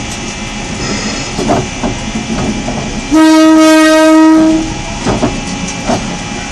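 Diesel railcar's horn sounding one blast of about a second and a half, about three seconds in, warning people off the track. Under it the train rumbles along slowly, with a few wheel clicks over the rail joints near the end.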